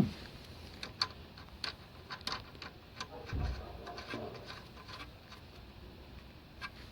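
Scattered light metallic clicks and taps of a spanner and bolt being worked while fitting a ball joint on car front suspension, with a soft thud about three and a half seconds in.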